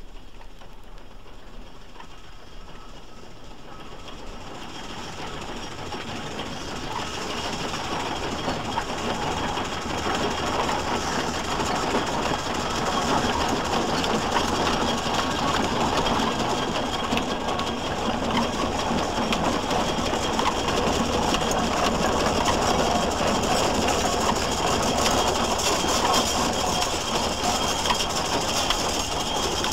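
A Garrett steam tractor approaching. Its rhythmic exhaust beats and mechanical clatter grow steadily louder over about the first twelve seconds, then it runs close by, loud and even.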